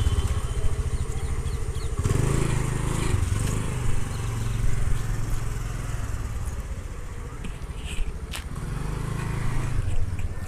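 Small scooter engine running as the rider pulls away and takes a right turn. Its hum fades somewhat in the middle and grows louder again near the end.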